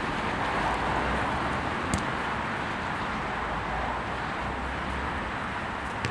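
Steady outdoor background rush with a sharp ball kick about two seconds in and another near the end, from a futsal game on artificial turf.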